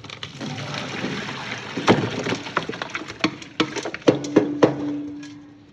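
Water sloshing in a pot as pieces of pork are handled and washed in it, with sharp knocks and clinks against the pot.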